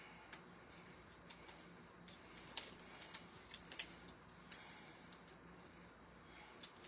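Near silence: room tone with a faint steady hum and a few scattered soft clicks and ticks.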